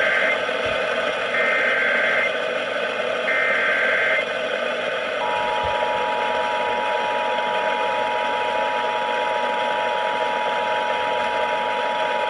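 Emergency Alert System alert on a radio receiver: the screeching digital SAME header bursts, one ending just as the sound begins and two more about a second long each a second apart, then from about five seconds in the steady two-tone attention signal, all over constant radio hiss. It marks the start of a new alert.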